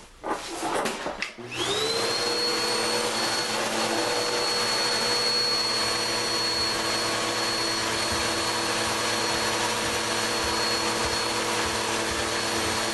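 Electric motor switching on about a second and a half in, its whine rising quickly to a steady high pitch, then running steadily with a loud rushing-air noise.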